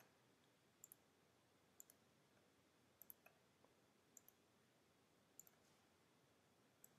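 Faint computer mouse clicks, about seven scattered singly and in a quick pair, over near silence.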